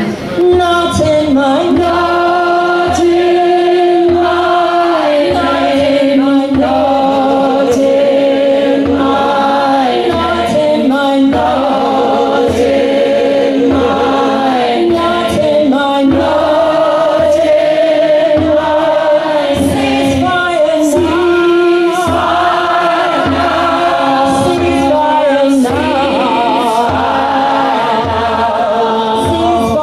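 Music: a choir singing held notes in several parts over a steady beat.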